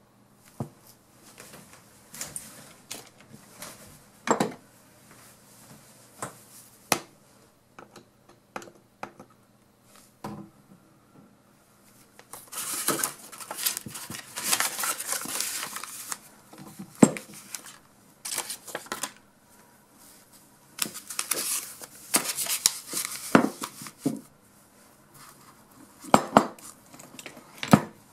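Small metal parts and tools of an opened Husky torque wrench's ratchet head clicking and clinking as they are handled, with two longer stretches of rapid rattling and a few louder single knocks.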